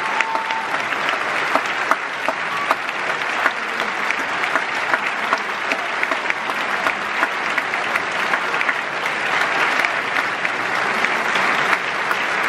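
A large audience applauding steadily: a dense, even wash of many hands clapping.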